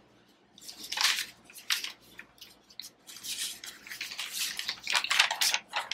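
Paper pages rustling and being turned over: a run of short crinkling sounds, sparse at first and busier and louder over the last few seconds.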